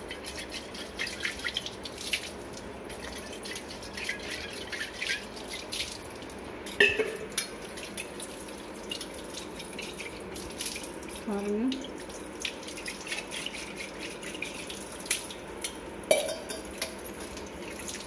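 Tap water running onto a copper water pot while hands rub and rinse it, with irregular splashes and drips throughout. This is the rinse that washes off the tamarind-and-salt scrub.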